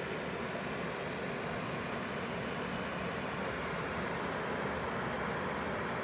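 Steady rush of a mountain stream's flowing water, an even noise with no breaks.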